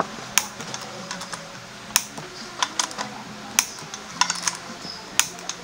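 Irregular sharp metal clicks and taps from hand tools and parts being worked at a scooter's rear wheel hub, about a dozen spread unevenly, over a faint steady hum.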